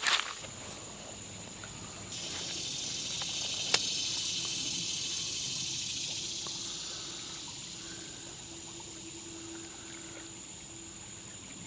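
Small-creek ambience: water trickling with a steady high insect whine, and a hiss that swells for a few seconds and then fades. A single sharp click comes about four seconds in.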